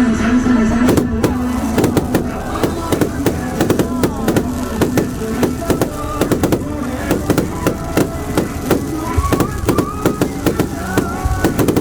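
Fireworks going off in quick succession, many sharp bangs and pops at an uneven pace of several a second, over music.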